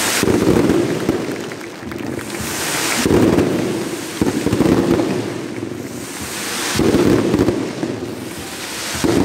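Fireworks going off overhead: about five loud bangs a few seconds apart, each dying away slowly.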